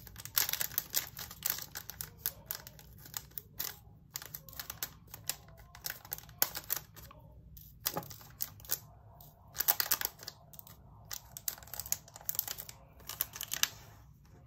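Small round resin diamond-painting drills shaken out of a plastic bag into a plastic container, clicking and rattling in irregular bursts.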